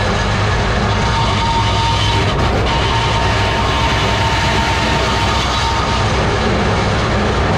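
Dirt modified race car's GM 602 crate V8 engine running steadily with no revving, heard from inside the cockpit.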